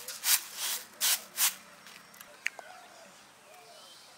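Broken rice being winnowed on a flat bamboo winnowing tray: the grains swish across the woven surface in rhythmic strokes, about three a second, which stop about a second and a half in.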